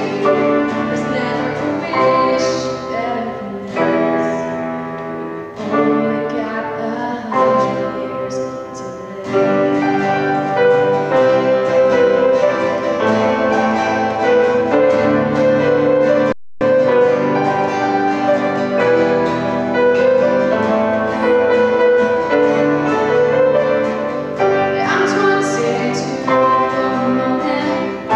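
A girl singing a song into a microphone, accompanied by her own steel-string acoustic guitar and a grand piano. A momentary dropout breaks the sound about halfway through.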